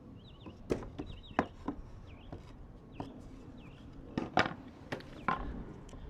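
Nails being driven into a wooden fascia board: about six sharp, irregularly spaced knocks, two of them close together. A bird chirps repeatedly in the background.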